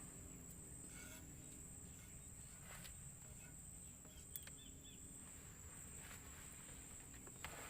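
Quiet forest ambience: a steady, high-pitched insect trill holds throughout over faint low background noise, with a few faint clicks.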